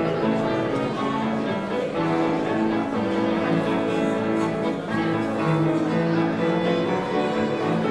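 Background music: a slow string piece with long held notes.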